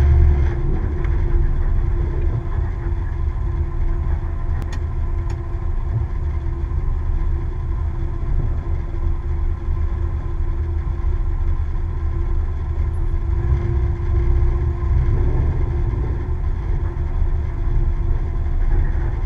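Dodge Dart drag car's engine idling, a steady, loud low rumble, with two sharp clicks about five seconds in.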